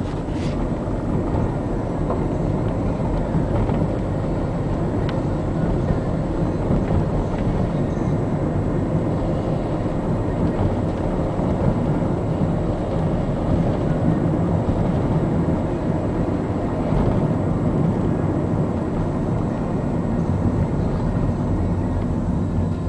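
Steady rumble of a car driving along a road, heard from inside: engine and tyre noise.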